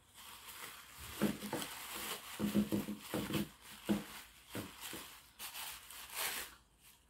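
Thin plastic bag being crinkled and pulled open by hand: irregular rustling and crackling with short snaps.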